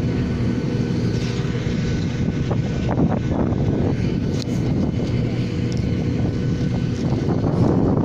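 Steady low drone of aircraft engines, with wind buffeting the microphone.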